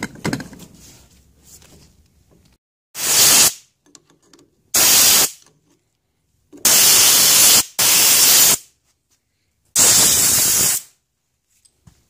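A knock at the start, then five short bursts of hissing pressurised spray, the third and fourth almost back to back, each cutting off sharply.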